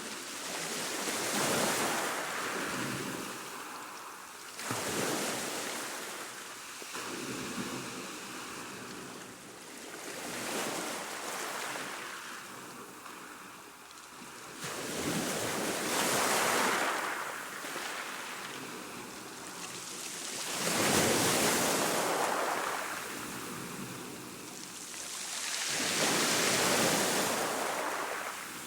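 Choppy sea washing, waves surging in and falling back with a hissing rush that swells and fades every five seconds or so.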